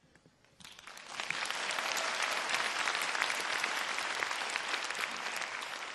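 A large audience applauding. It starts about half a second in, swells quickly to a steady dense clapping and begins to die down near the end.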